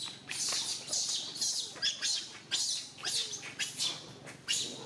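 Rapid high-pitched animal chirps and squeaks, several calls a second, each short and sharp.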